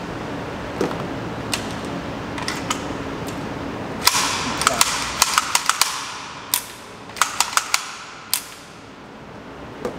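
Sharp metallic clicks and clacks of a gas blowback airsoft rifle's action being worked by hand to clear a bad jam, scattered at first, then in quick clusters. The loudest click, about four seconds in, is followed by a short hiss.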